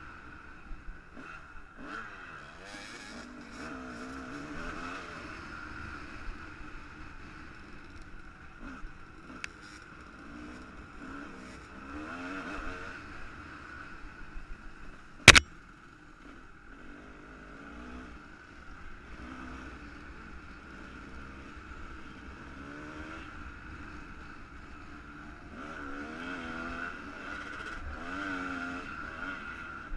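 A 1998 Kawasaki KX250 two-stroke dirt bike engine under way, its pitch rising and falling as the throttle is worked on a steep dirt trail. A single sharp crack about halfway through stands out as the loudest sound.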